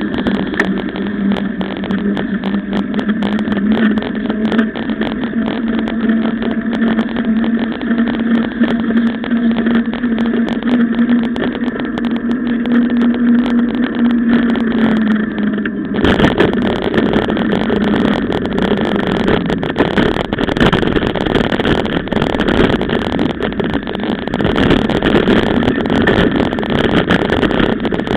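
Riding noise of a mountain bike with a camera on board: a steady hum from knobby tyres rolling on asphalt, with light ticking. About halfway through it changes abruptly to a louder, rough rattling rush as the bike leaves the paved road for a bumpy dirt track.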